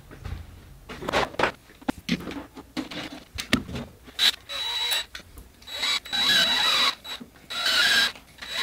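Cordless drill running in three short bursts, drilling out a battery cable lug so it fits the inverter's terminal, with a steady high whine. Before that come a few clicks and knocks as cables and tools are handled.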